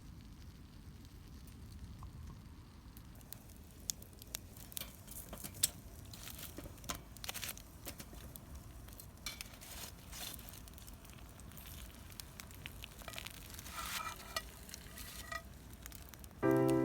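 Food sizzling as it cooks over a wood fire, with irregular crackles and pops over a low rumble. Music comes in near the end.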